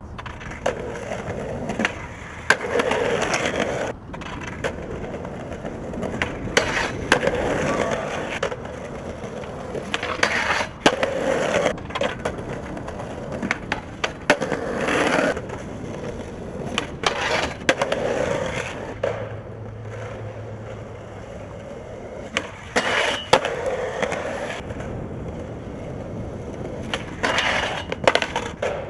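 Skateboard urethane wheels rolling on concrete, over and over in repeated runs, with sharp pops and knocks of the board, a grind on a metal stair handrail, and the board clattering onto the pavement on landings and bails.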